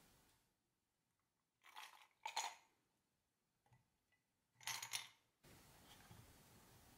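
Ice cubes clinking and sliding in a drained glass tumbler as it is tipped and set back down: a pair of short clinks about two seconds in, the loudest, and another cluster about five seconds in.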